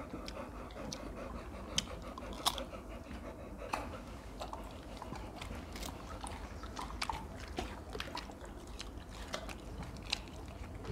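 Crisp guava being bitten and chewed: soft, scattered crunches and clicks at a low level.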